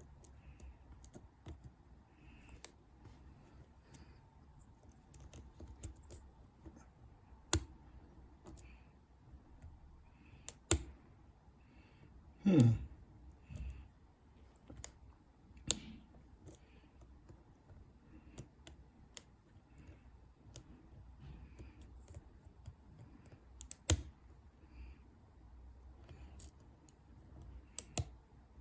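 Lock pick and tension wrench working the pins of a Master Lock padlock: scattered small clicks and taps as the pins are set, with a few louder sharp clicks. One short, low-pitched sound about halfway through.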